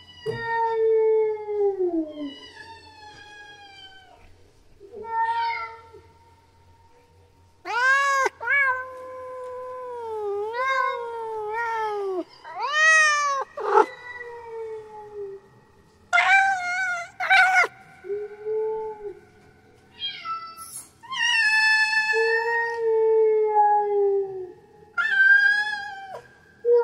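Female cat in heat yowling her mating call: about a dozen long calls, each bending up and down in pitch, with short pauses between them.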